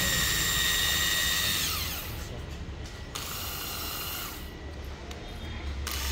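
Corded 100 V electric screwdriver running with a steady high whine, then winding down about two seconds in, followed by quieter handling noise. The seller says its carbon brushes spark and that it doesn't reach full speed.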